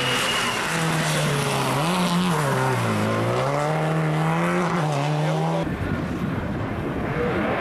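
Subaru Impreza rally car's turbocharged flat-four engine under hard driving through a corner: the engine note climbs, drops sharply as the driver lifts off, then pulls back up as it accelerates away. About two-thirds of the way through, the sound cuts abruptly to another rally car, heard as a noisier engine sound.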